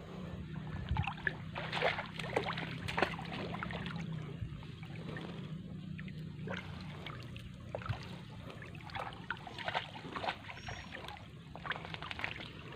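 Water dripping and splashing in irregular small spatters as a wet nylon gill net with foam floats is paid out into the water, with the mesh and rope rustling.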